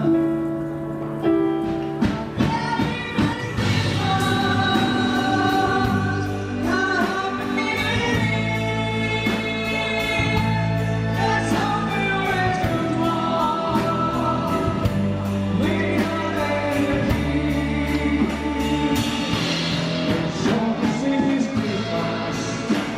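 A band playing a slow song with keyboard, bass and drums, with sung or choir-like vocal lines held over a steady beat.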